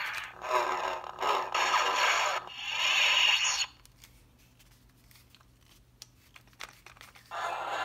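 Hasbro Mace Windu electronic lightsaber toy playing its lightsaber sound effects from its small speaker in a run of loud, noisy bursts that stop about four seconds in as the blade light goes out. After a few quiet seconds with a couple of faint clicks, the toy's sound starts again near the end.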